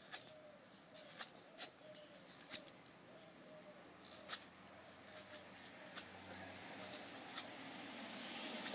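Knife blade slicing through the rubber of a tyre: faint, scattered sharp clicks and creaks as the blade works through the rubber.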